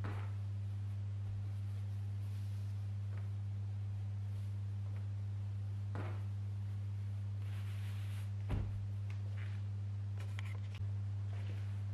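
A steady low hum throughout, with faint rustling and a few soft thumps of folded cotton dish towels being handled and pressed onto a stack on a countertop.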